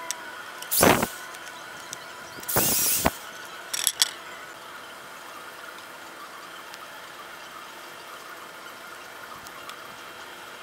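Corded drill run in two short bursts, its bit boring pocket holes into a wooden board, with the motor whine rising as it spins up; a quick pair of sharp clicks follows, then only a faint steady hum.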